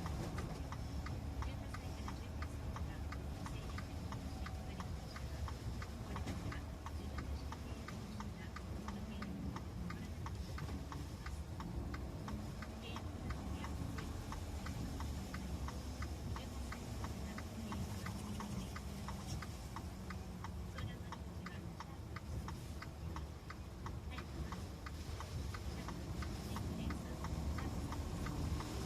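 A car's indicator relay ticking steadily, several clicks a second, over a low engine and road rumble.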